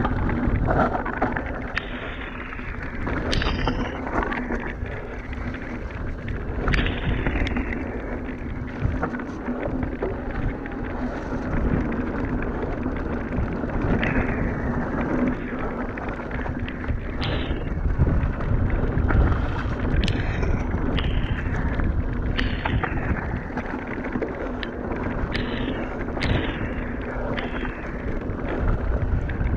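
Mountain bike descending a rough gravel and dirt trail, heard from a rider-mounted action camera. Wind rushes over the microphone, the tyres run on loose stones, and frequent sharp knocks and rattles come from the bike hitting rocks and roots.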